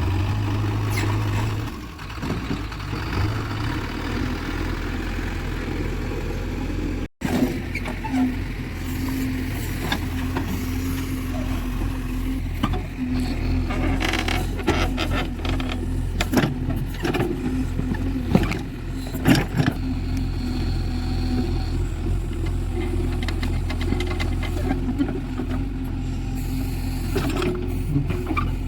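Diesel engine of a JCB 3DX backhoe loader running steadily under load, with scattered knocks and clunks throughout. The sound breaks off for an instant about seven seconds in.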